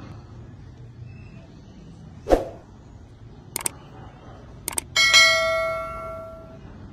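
Subscribe-button animation sound effect: a short hit, two mouse clicks, then a notification bell rings once and dies away over about a second and a half.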